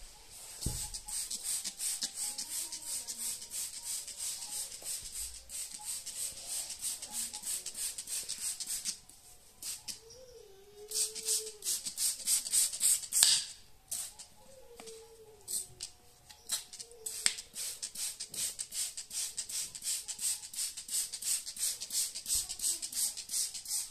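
Trigger spray bottle pumped rapidly, squirting all-purpose cleaner onto fabric upholstery: a fast run of short hissing spritzes, several a second, broken by two brief pauses around the middle. This is the pre-spray of cleaner before extraction.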